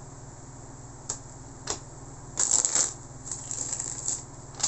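Tarot cards being handled: two light taps, then a short rustle of cards about halfway through and softer rustling after it.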